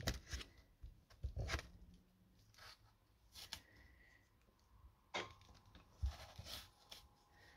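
Insulating tape being handled and wrapped around the soldered contacts of a small electric motor, with faint scattered crackles and light clicks from the tape and the metal gearbox being handled.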